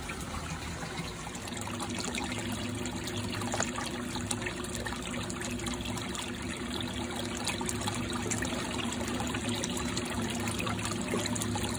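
Water trickling and splashing steadily as it flows out of a pump-fed biological filter into a fish pond, over a faint steady low hum.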